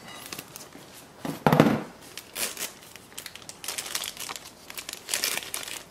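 Pink plastic blind bag crinkling as it is cut with scissors and torn open by hand, in irregular crackles, with a louder crackle about a second and a half in.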